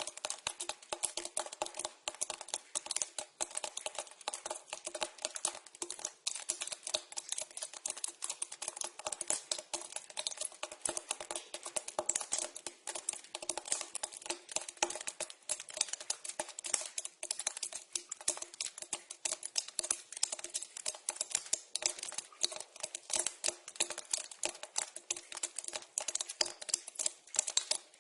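Water dripping into a pipe: a dense, irregular patter of many small drops a second, each a sharp click, over a steady hollow ring.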